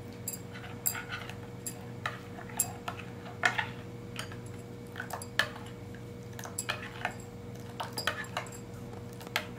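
Metal spoon stirring liquid in a glass mixing bowl, clinking against the glass in irregular light taps, over a steady low hum.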